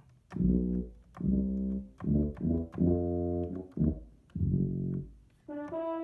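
Akai MPK Mini Play's built-in tuba sound played as a run of about six low brass notes. Near the end a single higher held note sounds on the keyboard's French horn preset.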